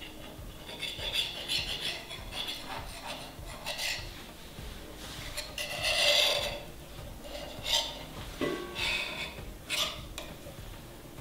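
A ceramic-bladed knife scraping along the rim of a ceramic baking dish as the excess puff pastry is cut away, in a series of short, uneven scrapes. The longest, loudest scrape comes about six seconds in.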